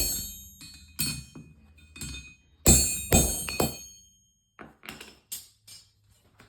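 Hammer blows ringing off hot steel on an anvil, forging heated garage door spring steel: about seven heavy, unevenly spaced strikes, then a few lighter taps near the end.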